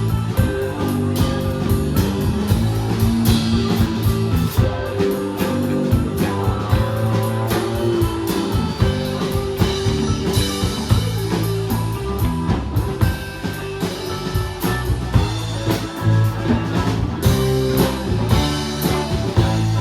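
Live rock band playing an instrumental stretch of a song: guitar over a steady drum kit beat.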